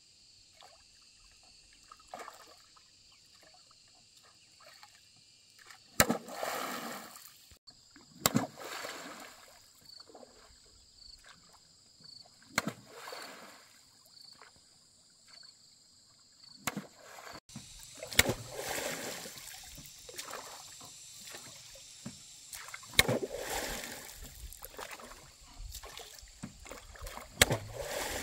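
Oars of a small wooden rowboat pulled through the water: each stroke a sharp wooden knock of the oar in its pin followed by a short swish and splash of the blade, every few seconds and more often in the second half.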